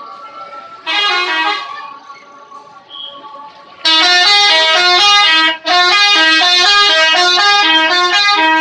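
Bus telolet horn, a multi-tone musical air horn, playing a tune of stepped notes: a short blast about a second in, then a loud run of changing notes from about four seconds in, broken once briefly.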